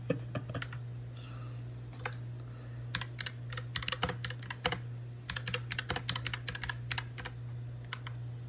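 Keyboard typing: irregular key clicks, sparse at first, then in quick runs from about three seconds in, over a steady low hum.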